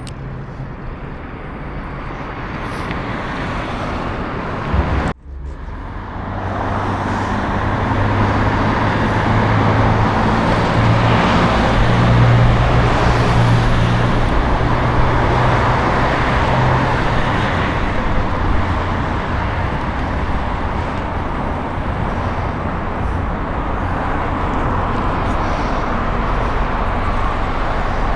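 Road traffic noise, steady and fairly loud, with a low steady hum for about ten seconds after a brief sudden dropout about five seconds in.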